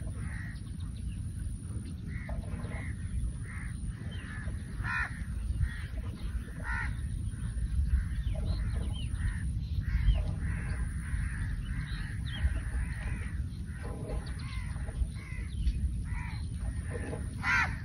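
Birds calling around the paddy: many short, scattered calls, some harsh and caw-like, over a low rumble of wind, with a thin steady high whine above.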